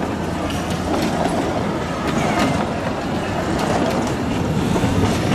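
Narrow-gauge (760 mm) train's open passenger wagons rolling along the track: a steady rumble with light clicking from the wheels over the rails and a few faint short wheel squeals.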